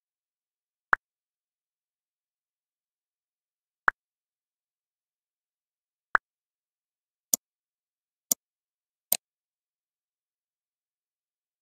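OptiKey on-screen keyboard's selection click sounds: six short clicks with dead silence between. The first three are softer ticks spread a few seconds apart, and the last three are sharper and brighter, about a second apart, as mouse-action keys are picked.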